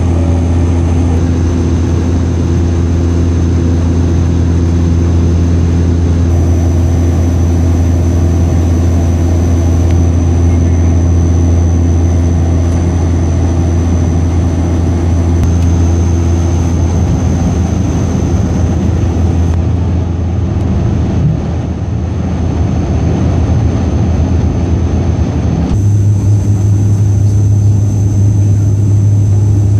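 ATR 72 turboprop engine and six-blade propeller droning steadily in flight, heard from inside the cabin next to the engine. Near the end the drone steps up in pitch and gets a little louder.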